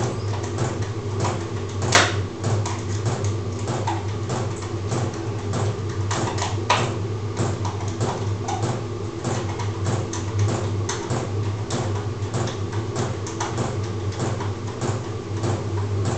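Small clicks and scrapes of a wall light switch being handled and fitted to the wall, with a sharper click about two seconds in, over a steady low hum.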